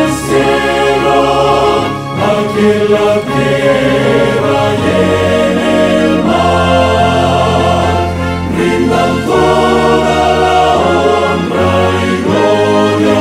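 Men's choir singing with an orchestra that includes brass and flutes, the chords changing every second or two over a steady bass.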